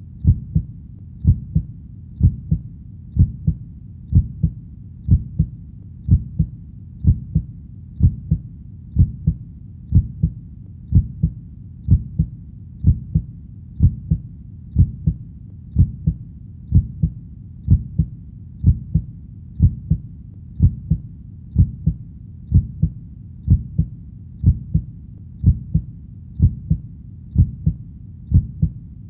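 Heartbeat sound: a steady double thump about once a second, low-pitched, over a faint continuous low rumble.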